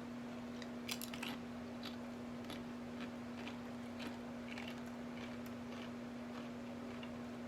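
A person crunching and chewing a chip: a run of irregular crisp crunches, the loudest about a second in, over a steady low hum.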